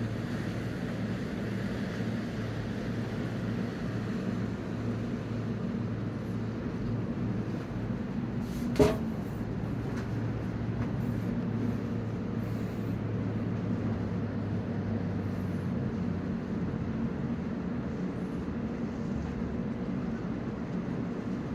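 Steady low hum of boat engines with wind noise, the lower tone easing off about two thirds of the way through. A single sharp click about nine seconds in.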